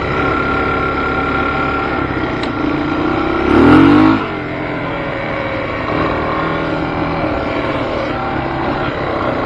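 Off-road vehicle's engine running steadily, with a short rev about three and a half seconds in that rises in pitch and is the loudest moment.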